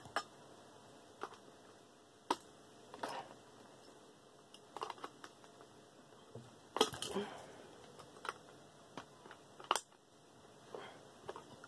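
Scattered clicks and knocks of hand tools against the metal parts of a desk fan being taken apart, a few seconds apart, with a louder cluster of knocks about two-thirds of the way through.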